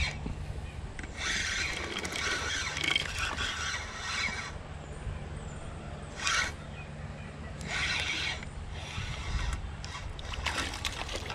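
Spinning reel being cranked to retrieve line, its gears whirring. There is one long spell of reeling about a second in, then several shorter turns with pauses between.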